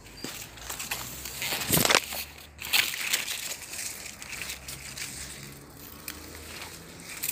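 Dry leaves and twigs crunching and rustling in irregular bursts as someone moves among lemon tree branches, with the loudest crunches about two seconds in and again shortly after.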